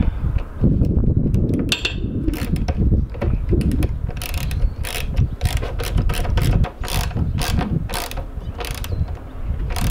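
Hand ratchet clicking in quick, irregular runs as a hose clamp is tightened around a tire carrier bar, starting about two seconds in. Wind rumbles on the microphone throughout.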